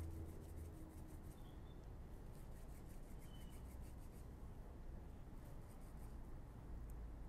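Faint rubbing of palms rolling a ball of oily sesame dough into a thin rope, in runs of quick strokes, over a low steady hum.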